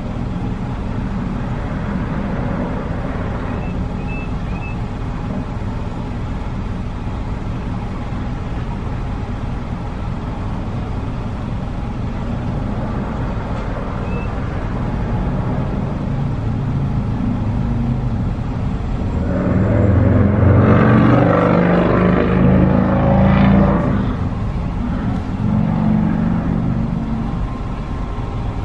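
Car engine idling, heard from inside the cabin as a steady low hum. About two-thirds of the way in, a louder vehicle sound swells for a few seconds, then fades back.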